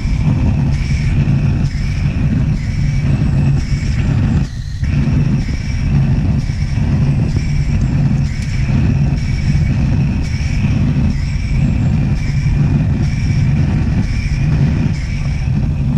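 Antique pressurized gasoline blowtorch (Otto Burns) burning with a steady, loud rushing noise as it heats a radiator seam for silver soldering, with a brief dip in the flame noise about four and a half seconds in.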